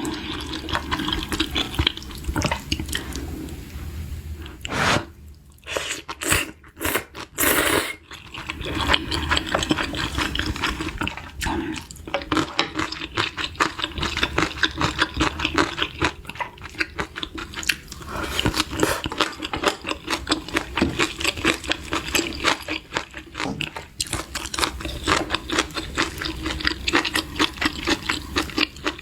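Close-miked eating: slurping kimchi udon noodles and broth with wet chewing, a few louder slurps about five to eight seconds in.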